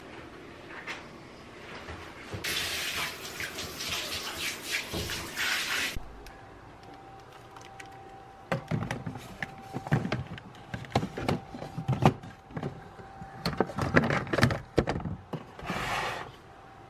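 A water tap runs for about three and a half seconds, then shuts off sharply. After that comes a string of knocks and clatters, as of things being handled and set down, with a brief rush of noise near the end.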